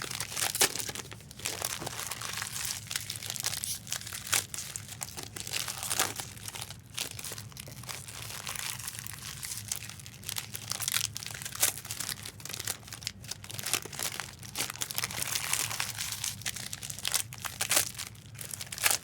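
Foil trading-card pack wrappers crinkling and tearing as packs are opened and handled, a continuous irregular crackle with sharper rips here and there.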